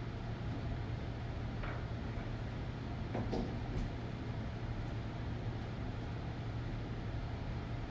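Steady low hum with a few faint knocks and clatters from objects being moved and set down on a desk, about two seconds and three to four seconds in.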